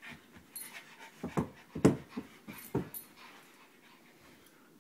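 Pug puppies play-fighting: panting, with a quick run of five or six short, loud dog sounds in the middle, the loudest about two seconds in.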